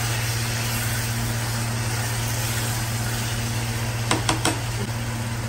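A steady low machine hum with hiss. About four seconds in, three sharp knocks in quick succession, a spatula tapped against the rim of a metal kadai.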